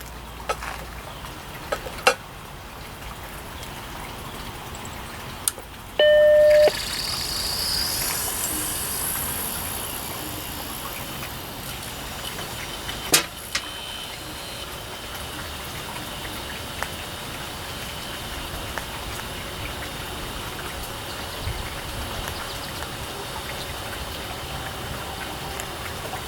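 Macintosh Plus switching on: sharp clicks, then a short loud startup beep about six seconds in. After the beep comes a high hiss as the hard drive spins up, then the drive runs on with a steady noise from worn bearings.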